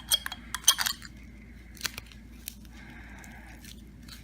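A quick run of light clinks and clicks of small hard objects being handled in the first second, two more single clicks a little later, then only a faint steady hum.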